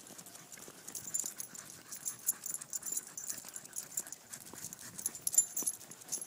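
A corgi trotting on a leash along asphalt: irregular light clicks of its claws and the walker's footsteps on the pavement.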